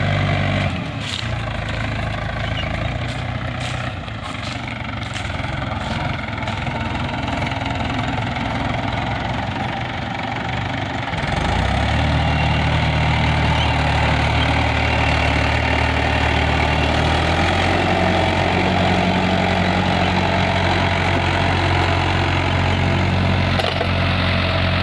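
Tractor engine running steadily while pulling a zero-till seed drill sowing wheat. The engine note changes about a second in, gets louder about halfway through and shifts pitch again later. Some light clicking comes in over the first few seconds.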